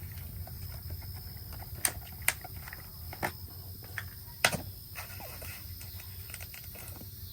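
A few sharp clicks and knocks from handling a plastic motor-oil bottle and its cap, the loudest about four and a half seconds in, over a steady low hum.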